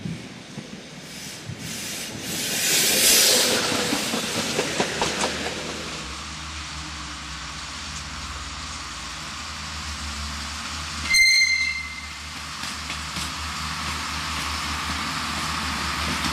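Electric trains moving slowly through the station throat: an SNCF BB 9200 electric locomotive and an electric suburban multiple unit. There is a hiss and a run of wheel clatter over rail joints and points, then a steady low hum, and a brief shrill squeal about eleven seconds in.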